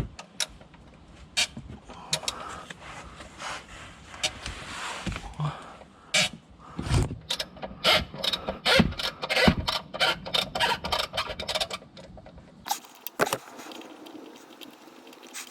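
Irregular metallic clicks and clanks of hand tools being handled, coming thick and fast in the middle. About three seconds before the end the background changes abruptly to a quieter one with a steady low hum.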